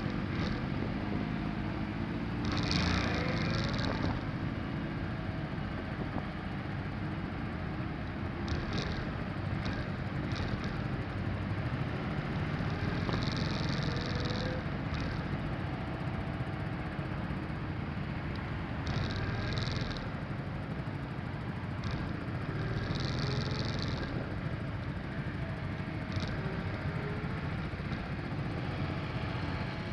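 Motorcycle engines running steadily as a group of motorcycles rides in traffic, heard from a bike's onboard camera. Short high hisses come and go every few seconds.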